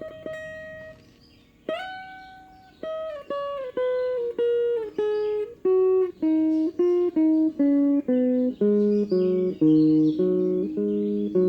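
Phin, the Isan Thai-Lao plucked lute, played dry without effects in lai phin style in A minor: a note bent upward, then a descending run of single plucked notes that settles into a quicker repeating figure over lower notes.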